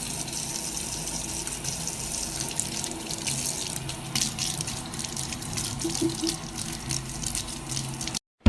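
Water running and splashing steadily, with irregular crackling splashes throughout; it stops abruptly near the end.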